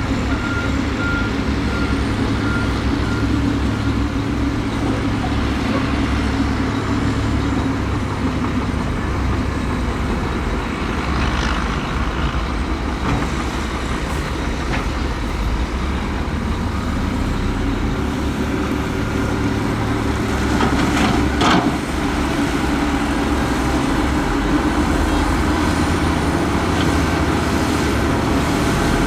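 Diesel engines of a bulldozer and dump trucks running steadily under load. A reversing alarm beeps during the first few seconds, and there are occasional clanks.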